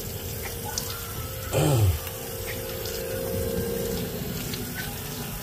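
Kitchen tap running into a sink, with a steady hum that stops about four seconds in. A brief, louder sound sliding down in pitch cuts in about one and a half seconds in.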